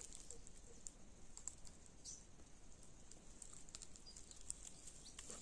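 Near silence: faint outdoor ambience with scattered light clicks and a few faint high chirps.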